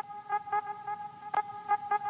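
Outro background music: a steady held tone with a quick, even pattern of short repeated notes over it.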